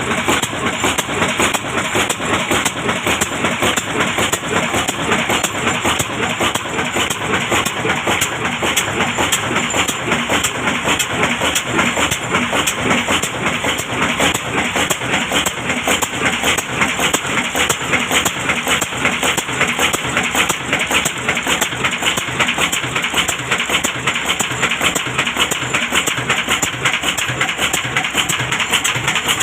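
Old diesel engine running steadily under load from a stone flour mill, with a fast, even knocking rhythm.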